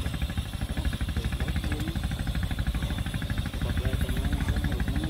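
A small engine running steadily with a fast, even knocking beat.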